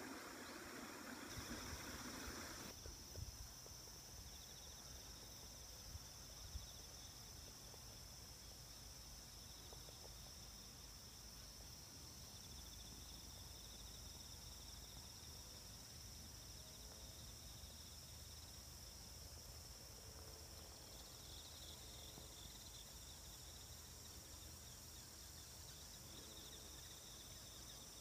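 Faint, steady high-pitched chirring of insects in the grass, one even note with a softer pulsing one under it. For the first couple of seconds a small stream trickles beneath it.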